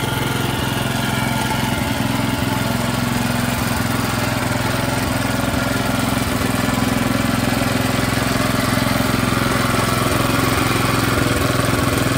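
Small engine of a walk-behind power tiller (two-wheel tractor with rotary tiller) running steadily while the machine is manoeuvred by hand.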